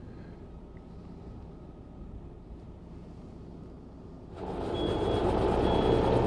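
Tractor pulling a feed mixer wagon, its engine running faintly at a distance; about four seconds in, the sound jumps to the tractor and mixer wagon running loud and close, with a high beep repeating about once a second.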